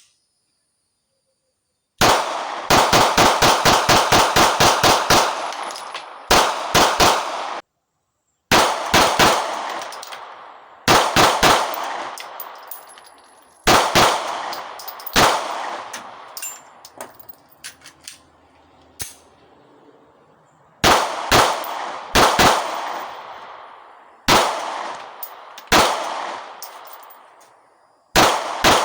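Semi-automatic firearm fired in fast strings, about a dozen shots at roughly four or five a second, then several shorter groups of two to five shots, each shot trailing off in echo. The strings are separated by abrupt cuts to silence.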